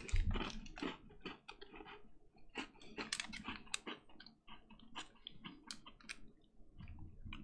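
Wrapper of a McVitie's Penguin chocolate biscuit bar crinkling as it is peeled open by hand: many small, irregular crackles and clicks, with a soft bump right at the start.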